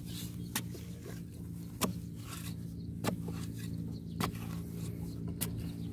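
A wooden stick jabbing and scraping into damp soil, digging out a crab burrow: five sharp strikes at an even pace, about one every second, over a steady low hum.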